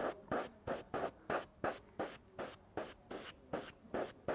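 Gravity-feed airbrush spraying in short, rapid bursts of hiss, about three or four a second, as the trigger is pressed and released over and over.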